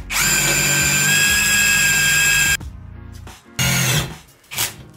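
Aimsak 22V cordless drill drilling into a thick 12 mm steel H-beam. It runs with a steady high whine for about two and a half seconds, stops, then gives two short bursts. The bit is not getting through the steel.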